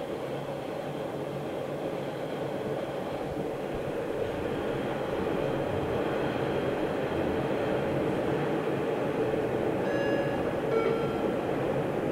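MBTA Orange Line subway train running at speed, heard from inside a car: a steady rumble of wheels on rail that grows louder as the train enters a tunnel. Near the end, two brief high-pitched squeals.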